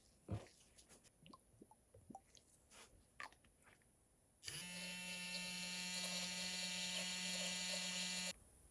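Light clicks and taps of small parts being handled, then a small electric motor switches on about halfway through. It runs at a steady pitch for about four seconds and cuts off suddenly near the end.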